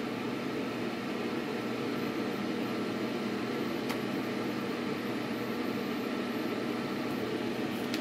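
ANAC ANH-6950 mini electric fan heater running, its blower giving a steady rush of air with a low hum. Two faint clicks, one about halfway and one near the end.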